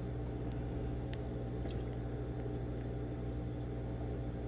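Steady low mechanical hum, with a few faint light ticks from a water-filled plastic bag being handled.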